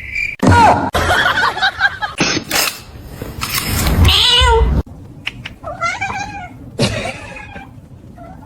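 Cats meowing and yowling: a string of loud calls cut together, one long call falling in pitch near the middle and shorter meows afterwards.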